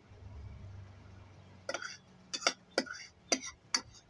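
Metal spoon clinking against a ceramic bowl while stirring oats: a run of sharp clinks, about two a second, starting a little under two seconds in.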